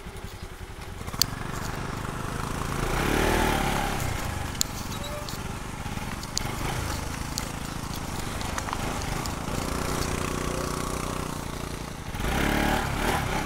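Motorcycle engine running at low speed on a muddy, rutted dirt track, its note rising briefly about three seconds in and again near the end, with a few sharp clicks and knocks from the bike over the rough ground.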